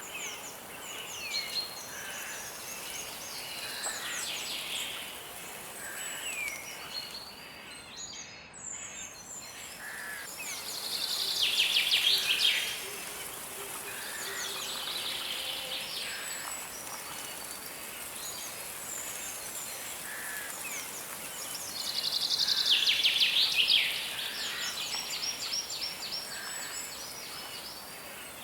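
Several songbirds singing and calling over a steady background hiss, with short chirps and down-slurred notes throughout. Two louder bursts of fast trilled song come about 11 seconds in and again about 22 seconds in.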